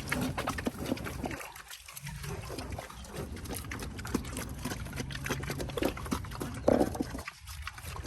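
Mangalitsa-cross pigs eating wet fermented feed, with irregular slurping, smacking and grunting.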